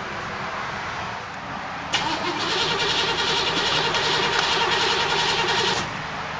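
1990 Cadillac Brougham's V8 being cranked and started about two seconds in. It runs loudly for about four seconds, then drops back to a lower, steady sound.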